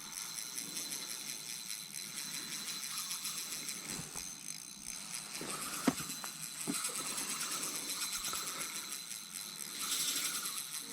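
Steady high hiss of outdoor background noise, with a few faint clicks and knocks around the middle.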